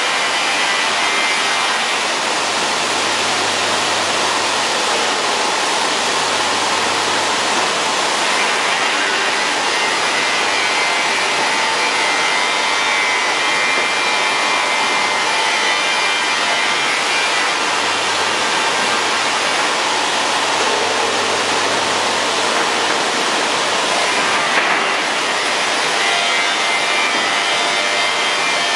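Industrial panel sanding machine running, sanding wood-based boards as they feed through: a steady, even grinding noise, with a faint low hum that comes in twice.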